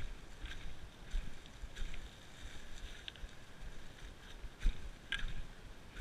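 Mountain bike rolling fast down a leaf-covered dirt singletrack, picked up by a body-mounted GoPro: a steady low rumble of tyres and wind on the microphone, with irregular short rattles and knocks as the bike goes over bumps, the loudest about five seconds in.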